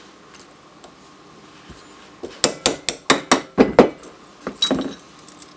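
A quick run of about eight sharp metallic clicks and clinks, starting about two seconds in and lasting a couple of seconds: small steel pistol parts knocking together as the M&P 10mm's factory trigger and trigger bar are worked out of the frame.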